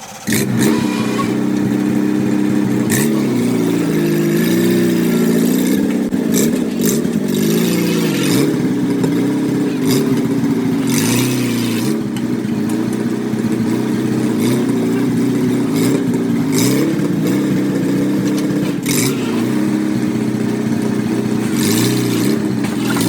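Farmall Super C's four-cylinder gasoline engine running under way, its speed wavering up and down a little, with scattered sharp clicks or knocks over it.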